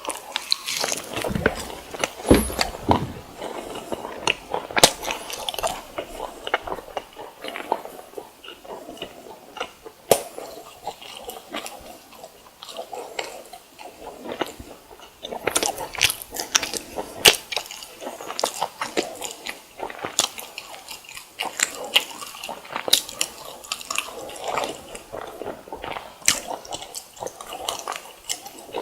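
Close-miked eating of fried snacks: crisp bites and chewing, with dense irregular crackles of the fried crust all through.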